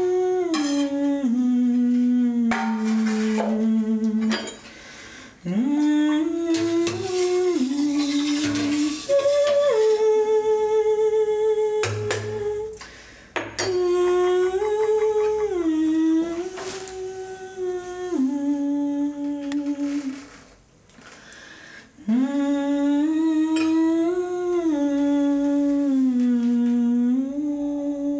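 A woman's voice humming a slow melody in long, held notes, in phrases with short breaks between them. A few light clinks and knocks are scattered through it.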